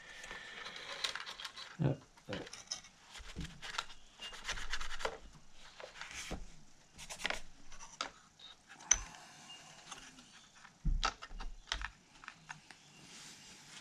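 Irregular small clicks, taps and stretches of rubbing and scraping as the inside of a Technics SL-1200 MK2 turntable's base is cleaned around the motor recess.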